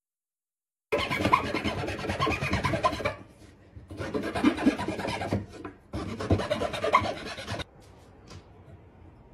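Handsaw cutting through a wooden board in three bouts of quick rasping strokes, each a second and a half to two seconds long, with short pauses between them. Near the end come a couple of faint knocks as the cut wooden blocks are set down.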